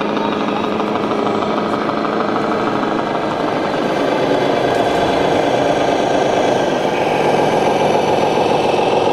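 Simulated diesel engine sound from the sound modules of 1:14-scale RC model trucks: a steady, rapid knocking run that grows louder about four seconds in and again near the end as a model Scania drives up close.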